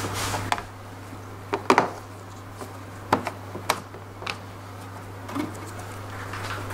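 Scattered sharp clicks and knocks of hard plastic scooter floorboard trim and small parts being handled and fitted by gloved hands, over a steady low hum.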